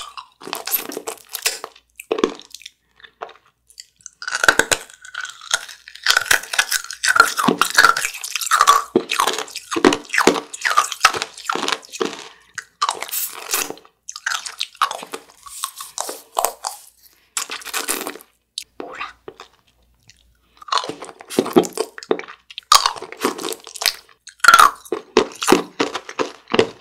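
Rock candy, crystallised sugar on a stick, being bitten and chewed: a rapid run of sharp, crackly crunches, pausing briefly twice.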